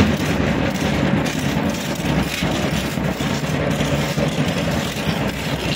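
Matachines dance in full swing: drumming, the dancers' hand rattles and their stamping steps merge into a dense, continuous din.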